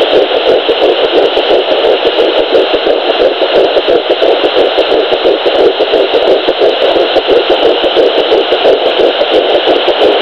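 Sonoline B 3 MHz handheld fetal Doppler picking up a fetal heartbeat at 8 weeks 3 days: a fast, even whooshing pulse over steady static hiss.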